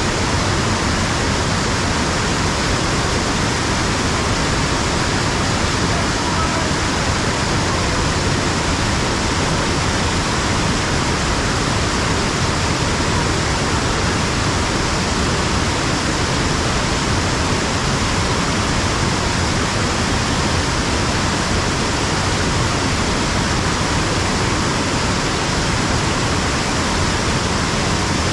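Waterfall rushing steadily, a loud, even wash of falling water.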